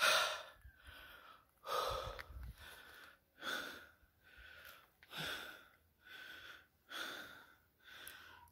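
A man breathing heavily and regularly into the phone microphone, out of breath after a steep climb. A stronger breath comes about every second and a half to two seconds, with a softer one in between.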